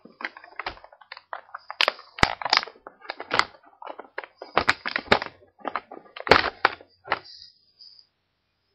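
Toy packaging being handled and opened: an irregular run of sharp clicks, knocks and crackles that stops near the end.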